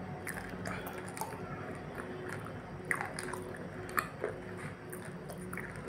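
A person chewing food with the mouth closed: soft wet smacking with a few sharper clicks, the loudest about three and four seconds in.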